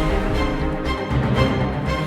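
Background music: held notes over a pulsing low beat.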